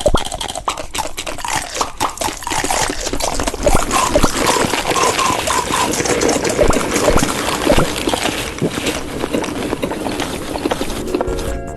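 Close-miked wet eating sounds: dense crackly chewing and slurping clicks.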